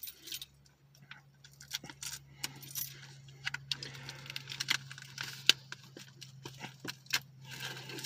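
A bunch of keys jangling and scraping as a key is used to cut open the plastic wrap on a movie case, in a run of sharp clicks and scratches. A low steady hum starts just after the beginning and runs underneath.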